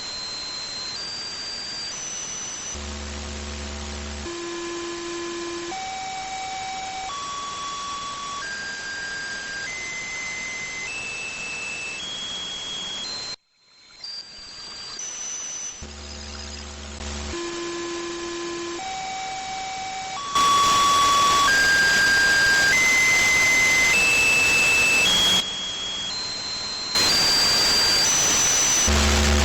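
An unidentified radio signal on 146.328 MHz heard through a receiver, which the uploader calls a weird noise. It is a repeating run of single beeping tones, each stepping to a new pitch, mostly climbing from low to high, over a bed of radio hiss. The run repeats about every 13 to 14 seconds; the signal drops out briefly about halfway through, and the hiss becomes much louder about two thirds of the way in.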